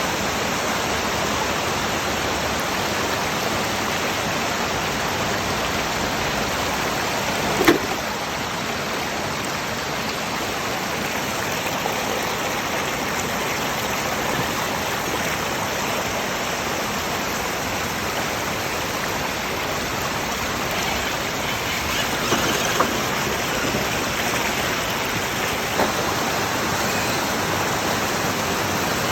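Steady rushing of a waterfall, with a sharp knock about eight seconds in and a few fainter knocks later.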